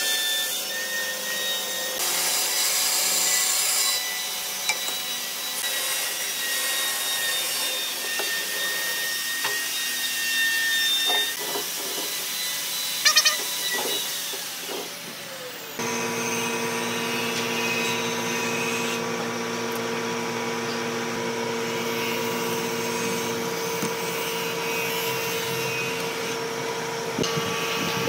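Bandsaw running and cutting a thick hardwood block, a steady machine noise with a faint high whine and a few brief knocks about halfway through. About 16 seconds in it switches abruptly to a different steady motor hum.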